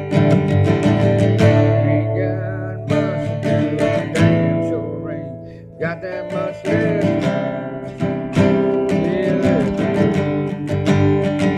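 Country-rock music with a strummed acoustic guitar.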